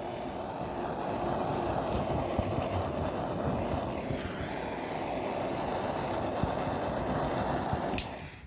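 Handheld torch flame hissing steadily as it is played over freshly poured resin to pop the air bubbles, shut off with a click about eight seconds in.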